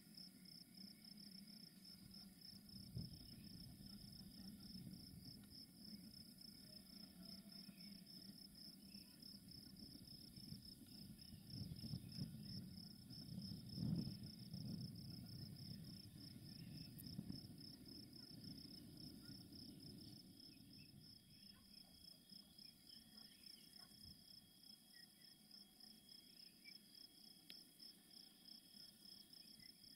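Crickets chirping in a steady, rapidly pulsing high trill. A faint low rumble swells and fades about halfway through.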